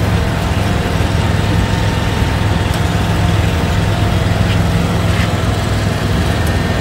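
Air-cooled chiller equipment running: a steady low machinery hum with a few constant tones over a broad rushing noise, unchanging throughout.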